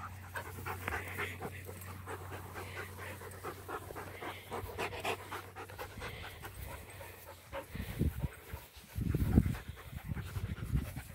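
Dogs panting in quick, even breaths at close range. About eight seconds in, low muffled thumps and rumbles come in, the loudest about nine seconds in.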